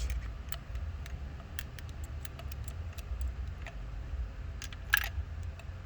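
Scattered metallic clicks of a socket wrench and tools working on the engine's spark plugs, with one louder clack about five seconds in, over a steady low rumble.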